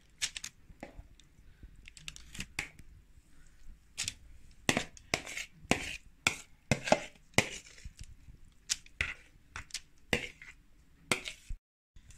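A kitchen utensil scraping and knocking against a bowl and baking tray as a wet grated-zucchini and egg mixture is scooped out and spread over parchment paper: irregular clicks and short scrapes, busiest in the middle, broken by a brief dead gap near the end.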